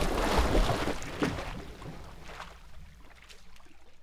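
Splashing water and sea-wave sound effect dying away, with a couple of sharper splashes about one and two and a half seconds in, fading out.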